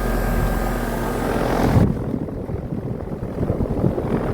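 A 2013 4-ton American Standard heat pump outdoor unit running, its fan and compressor giving a steady hum and rush of air. About two seconds in, the high hiss drops away, leaving a low, uneven rumble.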